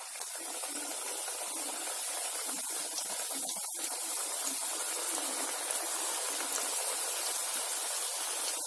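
Shakkar pare dough pieces sizzling as they deep-fry in hot oil in an aluminium kadhai, a fresh batch just dropped in. The sizzle swells over the first second, then holds steady.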